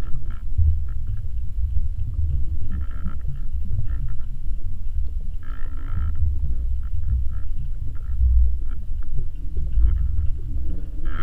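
Underwater sound picked up by a submerged camera: a steady low rumble of moving water, with short buzzing sounds every few seconds.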